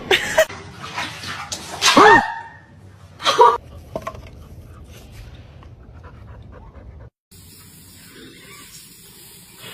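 A dog making a few loud, short calls, the loudest about two seconds in, followed by quieter sounds.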